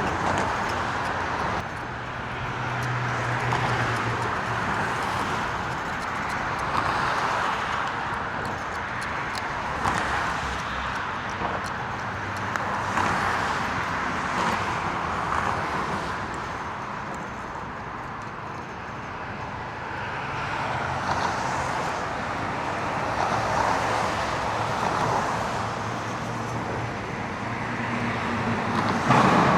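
Road traffic passing, a steady hiss of tyres and engines that swells and fades as vehicles go by.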